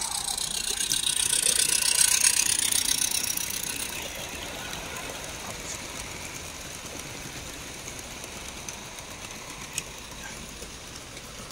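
Garden-scale model train, a small locomotive hauling a line of loaded wagons, running along its track. The sound swells as the locomotive passes about two seconds in, then eases as the wagons roll by, with a single sharp click near the end.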